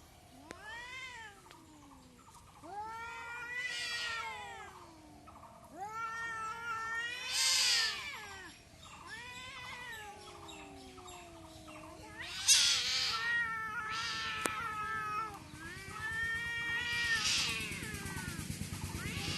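Cats caterwauling in a fight: a run of long, wavering yowls one after another, each rising and falling in pitch, the loudest about twelve seconds in.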